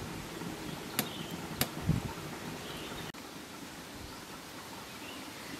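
A metal spoon clicks twice against a ceramic bowl, about half a second apart, followed by a low thump, over a faint steady outdoor background.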